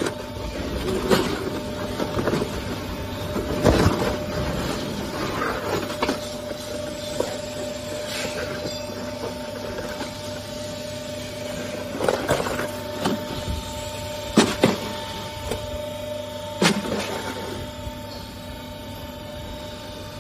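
Factory machinery running with a steady electric-motor hum and whine, broken by scattered knocks and clanks, a few of them louder, around a third of the way in and again in the second half.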